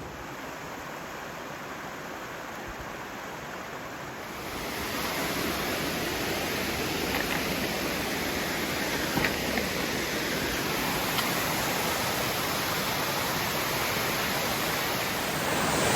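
Steady rush of a waterfall and creek running high, swollen by several days of rain; the rushing grows louder about five seconds in and holds.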